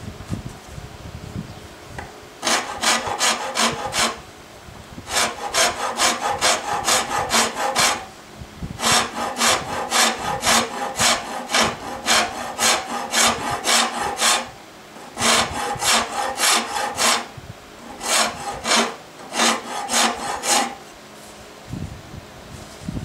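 Nicholson No. 49 pattern maker's rasp worked back and forth across a hard, coarse wooden hammer handle. The strokes come about three to four a second, in several runs broken by brief pauses.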